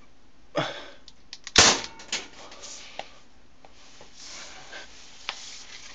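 A BB gun firing: one sharp shot about a second and a half in, with smaller clicks and knocks from handling the gun around it.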